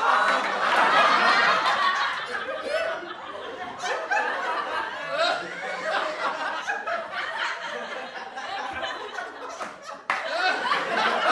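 Several people laughing together, chuckling and giggling over one another, loudest in the first two seconds. About ten seconds in, the sound cuts abruptly to another burst of group laughter.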